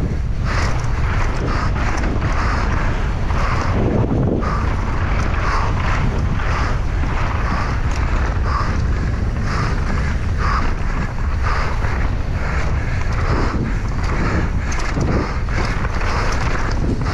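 Wind buffeting an action camera's microphone during a fast mountain-bike descent, with the tyres and bike rattling over rough ground in frequent, irregular knocks.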